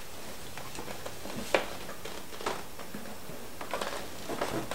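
Handling noise as a scoped rifle is worked down into a tight foam cutout in a hard plastic case: a few light knocks and rustles, with one sharper knock about a second and a half in and a cluster of soft taps near the end.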